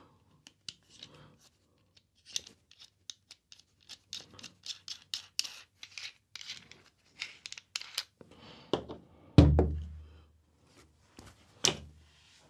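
Handling noise of a studio microphone's shock mount and pop filter being fitted and adjusted: a run of small plastic clicks and scratches, with a heavy thump about nine seconds in and a sharp knock near the end as the mounted mic is set down.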